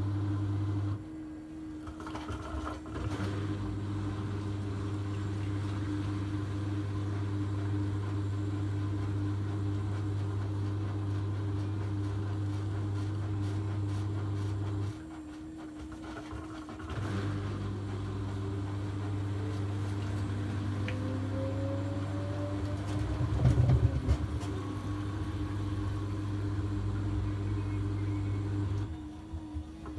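Steady low machine hum that drops out briefly three times, about fourteen seconds apart, with a short louder rattle a little after the middle.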